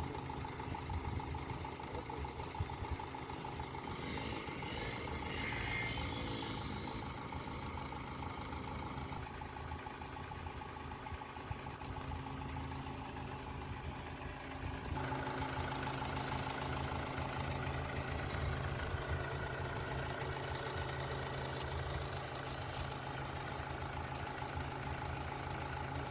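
Ashok Leyland truck's diesel engine idling steadily, getting a little louder about fifteen seconds in.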